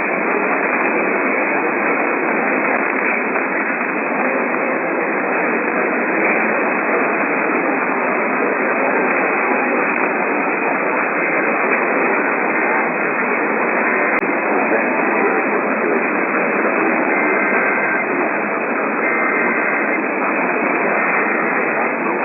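Radio static: a steady hiss from a weak or untuned radio receiver signal. Near the end, a few faint short tones show through the hiss.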